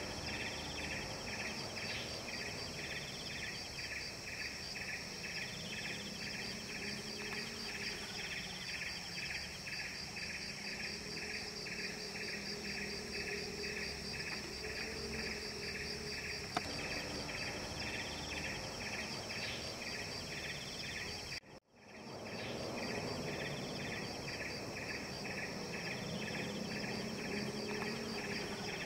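Outdoor insect chorus: a steady, fairly faint chirring of several pulses a second, with a brief gap about three quarters of the way through before it carries on.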